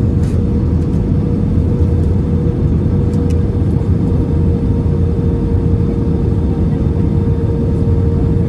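Steady cabin noise inside an Airbus A320 airliner: a constant low rumble of engines and airflow with a steady hum running through it.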